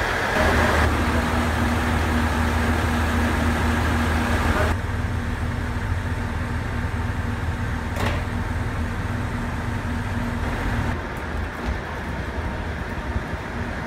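Diesel railcar engine idling: a steady low drone with a held hum, which drops away about eleven seconds in. A single sharp click about eight seconds in.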